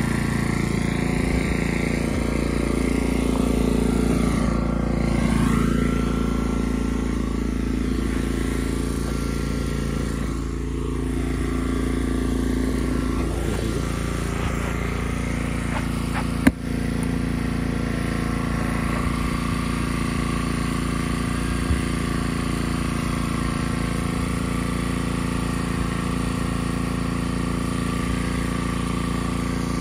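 An engine running steadily, its pitch shifting slightly a couple of times, with one short sharp knock just past halfway.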